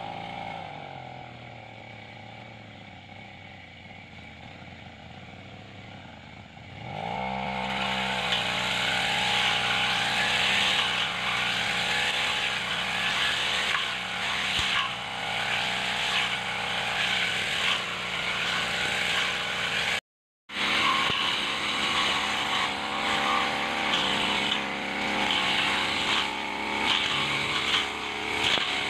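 Backpack brush cutter's engine falls back to idle, then revs up about seven seconds in and runs at high speed as it cuts through grass and weeds, its pitch dipping and recovering with the load. The sound drops out for about half a second around two-thirds of the way through.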